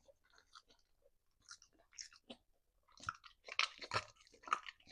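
A dog crunching and chewing a treat, with scattered crunches that come thicker and louder in the second half.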